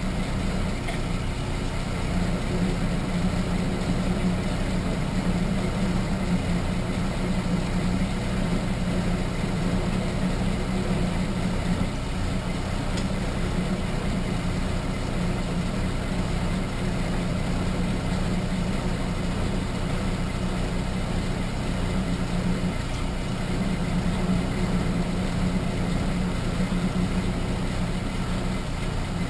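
Small bench machine-tool motor, most likely a 7x10 mini lathe, running at a steady speed with an even hum while a Q-size twist drill cuts a hole.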